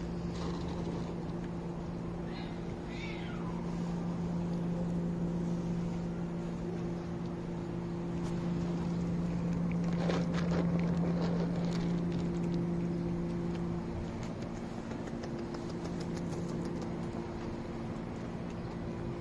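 A steady low mechanical hum, with a cat meowing once about two seconds in. About ten seconds in, a cat crunches dry kibble as it eats.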